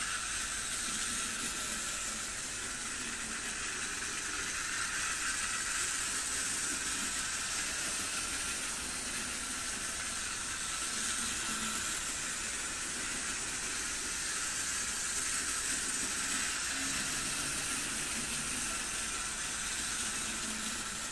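Small H0 model train running on three-rail metal track: a steady whirring hiss from the locomotive's electric motor and its wheels rolling over the rails, with a slight low rumble that comes and goes as it rounds the loop.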